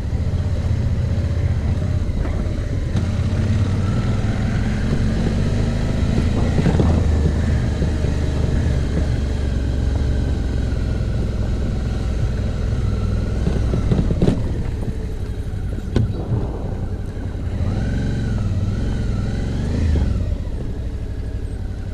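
Suzuki V-Strom motorcycle engine running at low speed over a bumpy dirt road, its pitch rising and falling with the throttle. A couple of sharp knocks come about two-thirds of the way through.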